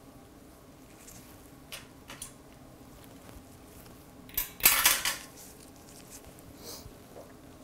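Steel facial-cleaning instruments being handled: a few light clicks, then a short, louder clatter about halfway through and a faint one near the end.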